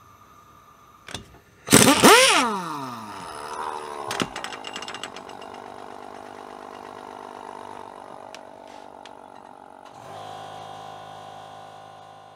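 Cordless impact wrench driving a 3D-printed nylon carbon fiber socket on wheel lug nuts torqued to 100 lb-ft. A loud burst comes about two seconds in and its pitch falls away; then the tool runs with a steady whir, which drops lower about ten seconds in.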